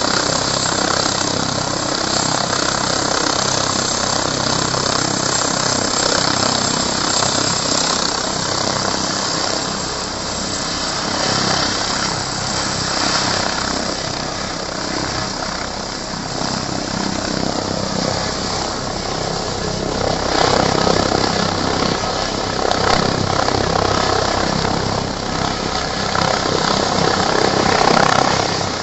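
Air-ambulance helicopter with a ducted fenestron tail rotor, its turbines and rotor blades running in a steady loud noise on the pad, growing louder about twenty seconds in as it lifts off.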